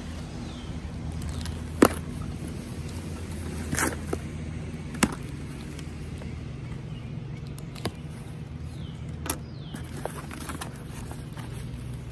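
Cardboard box being opened by hand: packing tape slit and peeled and flaps pulled open, giving a handful of sharp snaps and knocks, the loudest about two seconds in, over a steady low background hum.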